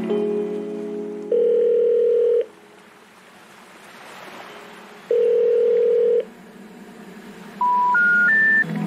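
Telephone call tones: two long, low ringback tones about four seconds apart, then three short beeps rising in pitch step by step, the special information tone that signals a call that cannot be completed. Mallet-like music notes fade out at the start.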